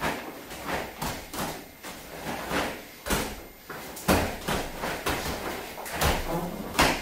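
A taekwondo practitioner's fast strikes and kicks: a quick series of sharp snaps of the cotton uniform, about two a second, with thuds of bare feet on the mat. The loudest hits come about four seconds in and near the end.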